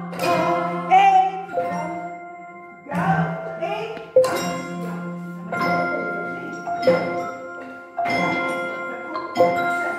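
A group of Orff xylophones and other barred mallet instruments played together in slow, even half notes in F pentatonic. Each stroke lands roughly every second and a bit and rings on, over a held low note.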